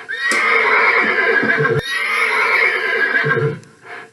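A horse neighing: one long whinny lasting about three and a half seconds, with a sharp click about halfway through.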